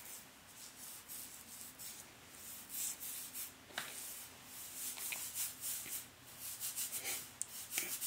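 Fingertips rubbing and massaging castor oil through short hair on the scalp: an irregular, scratchy rustling, with a few brief clicks.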